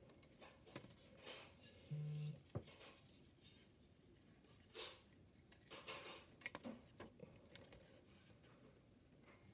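A few faint, irregularly spaced scissor snips, each one a cut through a model protein chain standing for a peptide bond being broken.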